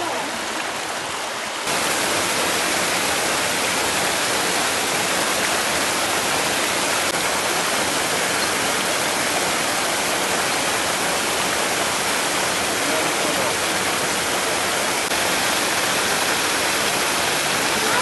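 Waterfall: water pouring down a rock face onto rocks, a steady, even rush that gets louder about two seconds in.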